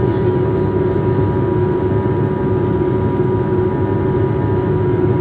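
Aeroplane engine noise: a continuous, even drone with a steady hum at two constant pitches and no change in level.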